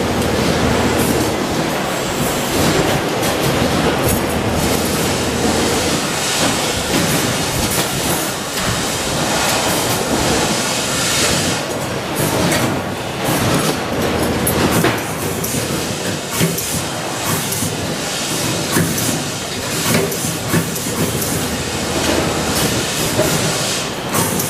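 Loud, steady factory din of machinery, with frequent metallic clinks and rattles from steel wire racks being handled.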